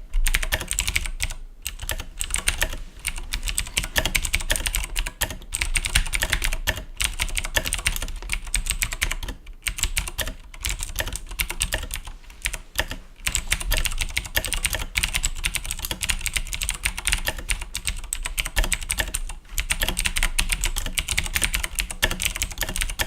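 Fast typing on a Razer BlackWidow Ultimate mechanical keyboard with Cherry MX Blue clicky switches: a dense stream of sharp key clicks, with a few brief pauses.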